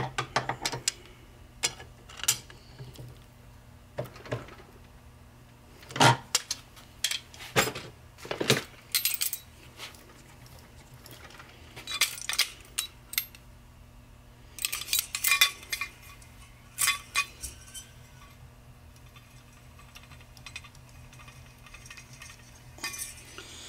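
Irregular metallic clinks and clicks of a wrench and hand tools against the nut and shaft of a tractor rear pinion assembly, as the pinion nut is snugged up to set bearing preload.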